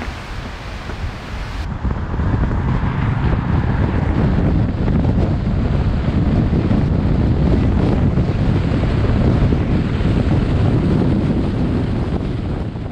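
Wind buffeting the microphone of a camera mounted outside a moving car, a loud low rumble mixed with road noise, which cuts in suddenly about two seconds in and starts to fade out near the end. Before it, a softer steady outdoor hiss.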